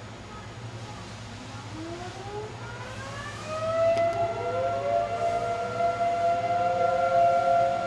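A siren winding up: several rising tones from about two seconds in level off into a steady held wail, growing louder.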